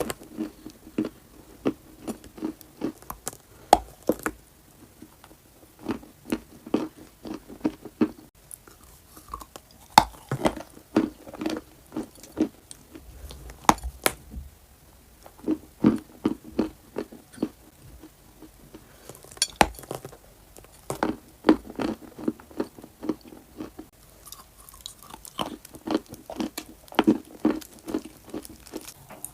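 Dry clay being bitten and chewed close to the microphone: repeated crisp crunches in clusters, with short quiet pauses between bites.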